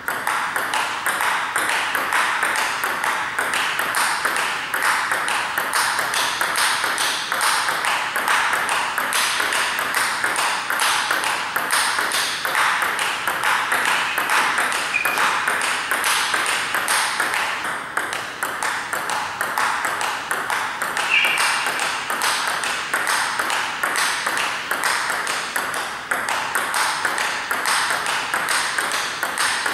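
Table tennis counterhit rally: the ball clicking off the bats and the table in a quick, even rhythm of several clicks a second. It is first a celluloid ball, then the new plastic 40+ poly ball.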